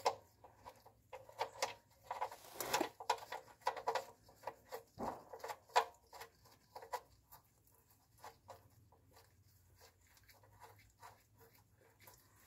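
Scattered light clicks, taps and rattles of a hand and tools working at the oil pan to close the drain after the old oil has finished draining. They are busier in the first half and grow sparse and faint later.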